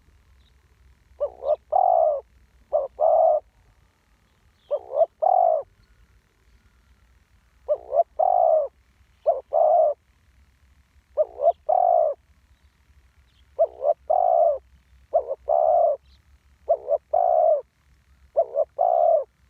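Spotted dove cooing over and over: short phrases of two or three low coo notes, repeated every second or two.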